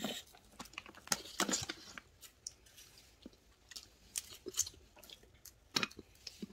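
Red snow crab being eaten at close range: irregular cracks and clicks of shell being broken, cut and picked, mixed with chewing. The clicks are dense in the first two seconds, then sparse.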